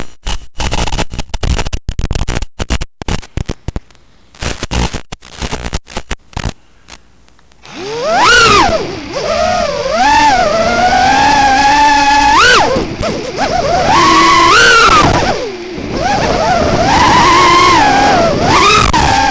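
Choppy, crackling static that keeps cutting in and out, then, about eight seconds in, the high whine of a small FPV quadcopter's motors, its pitch rising and falling as the throttle changes.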